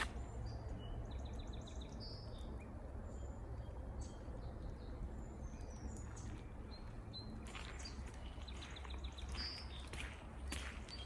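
A small songbird singing a quick series of repeated high notes, twice: near the start and again about nine seconds in. Under it is a steady low outdoor rumble, and there are footsteps near the end.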